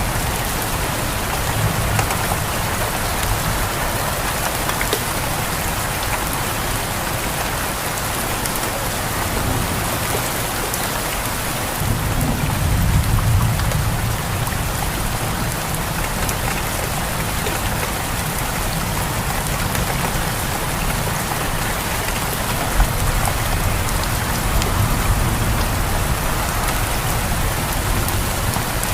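Steady rain pouring down, with low rolls of thunder; the loudest swells up about twelve seconds in, and a weaker one comes near the end.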